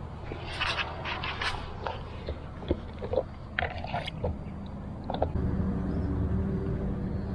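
Scattered clicks, taps and scrapes of a round plastic fish bucket's lid being handled as a caught tilapia is put away, with a low rumble in the last couple of seconds.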